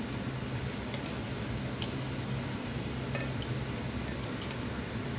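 Chicken breasts frying in a pan of oil and juices, being turned with metal tongs: a steady sizzle over a low hum, with a few sharp clicks of the tongs against the pan.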